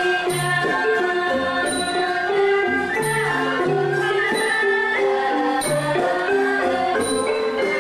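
Traditional Khmer folk music for a dance: a stepping melody of pitched instruments over lower sustained notes, with a light, high percussion strike about once a second.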